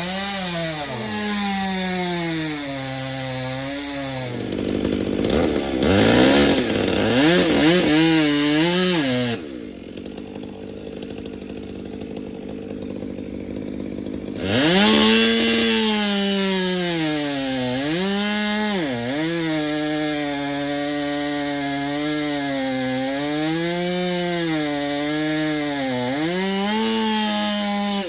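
Chainsaw running and cutting through the pine, its engine pitch repeatedly dropping under load and climbing back. About ten seconds in it falls to a quieter, lower run for roughly five seconds, then returns to full revs and cuts again.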